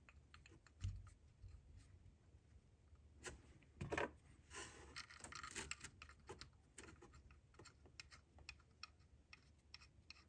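Faint, scattered small metallic clicks and ticks of bolts being started by hand into an aluminum thermostat housing, with a couple of slightly louder ticks about three and four seconds in.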